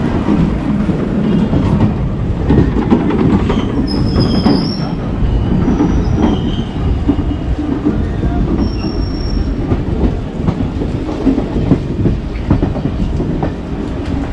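Passenger train running on the rails, its wheels rumbling and clattering over the track. A few brief high wheel squeals come in the middle, around four, six and nine seconds in.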